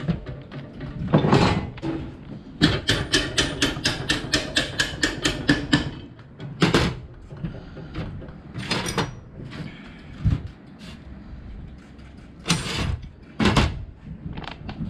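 Bolt being fitted to the pivot of a homemade machete grass chopper: a ratchet wrench clicking quickly and evenly, about seven clicks a second for some three seconds, with separate metal knocks and clanks before and after.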